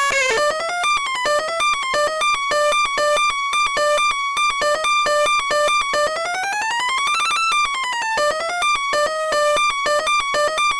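2001 Fisher-Price Sesame Street Magical Moves toy keyboard playing a fast electronic melody of short, bright notes. About halfway through, a quick run of notes climbs and steps back down.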